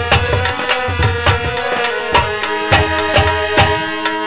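Instrumental passage of devotional bhajan music: a steady hand-drum beat under sustained melodic instrument notes, with no singing.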